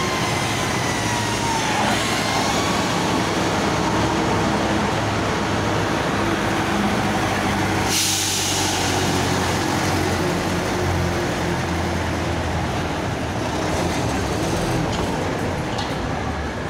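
Vintage trucks and buses driving slowly past, their engines running steadily. A whine falls in pitch as one vehicle goes by at the start, and a short burst of hissing air comes about eight seconds in.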